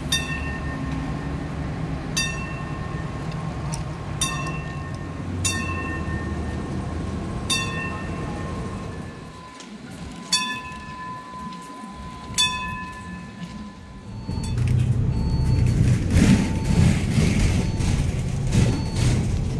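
Hong Kong Light Rail Phase 4 car rolling slowly along the track with a low rumble, and a sharp bell-like ding about every two seconds. In the last few seconds a louder rumble comes in, with a short high beep repeating about twice a second.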